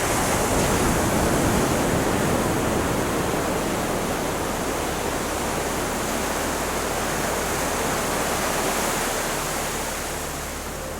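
Ocean surf: a steady roar of waves breaking, coming in at once at the start and easing off slowly near the end.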